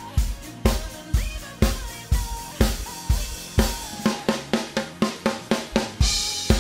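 Drum kit playing a steady pop beat along with a backing track, bass drum about every half second with snare and hi-hat strokes between. The hits come quicker in the last couple of seconds, and a crash cymbal rings out near the end.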